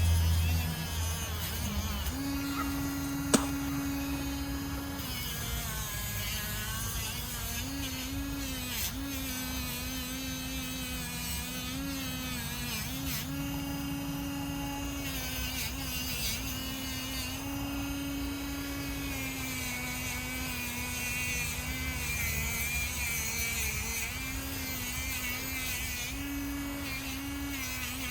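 Small electric power tool running steadily, its motor pitch dipping and wavering as the work is pressed against it during polishing. One sharp click about three seconds in.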